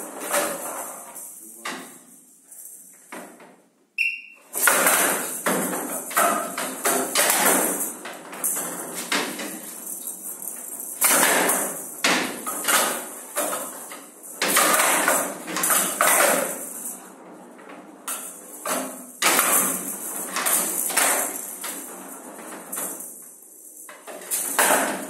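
Showdown rally: the sound-ball's metal pellets rattle as it rolls and rebounds across the wooden table, punctuated by sharp knocks of wooden bats striking it and the ball hitting the side walls. The knocks come in quick irregular runs with short lulls between exchanges.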